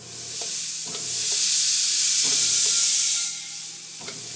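A stiff-bristled brush scrubbing across a flat plate, making a steady hiss that eases to a softer hiss about three seconds in.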